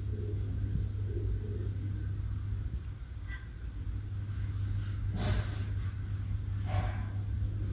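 Steady low background rumble, with two short, louder noisy sounds about five and seven seconds in.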